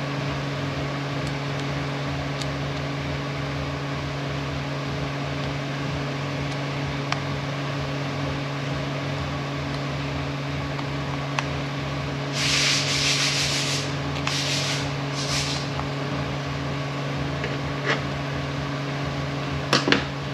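A steady low hum runs throughout, with a few small sharp clicks of metal impact-wrench parts being handled and fitted. Three short hissing bursts come about two-thirds of the way through and are the loudest sound.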